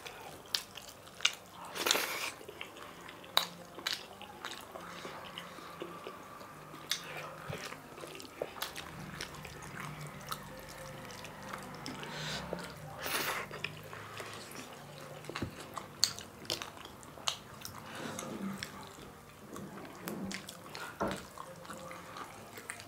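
Close-up eating sounds: chewing and biting through chicken wings and curried rice eaten by hand, with many short wet clicks and smacks scattered through.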